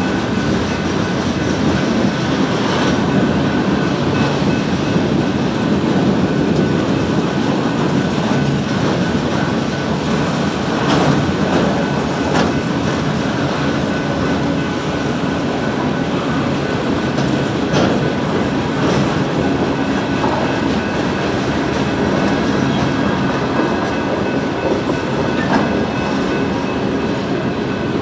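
Mixed freight train's cars rolling steadily past, with wheels clacking and knocking over the rail joints at scattered moments and a thin high wheel squeal near the end.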